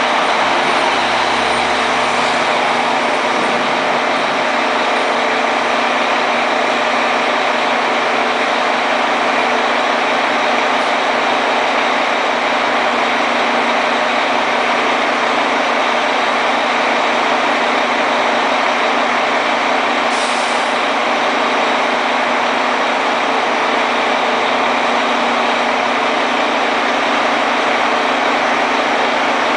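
Fire truck's diesel engine idling steadily, a constant mechanical drone, with a brief high hiss about twenty seconds in.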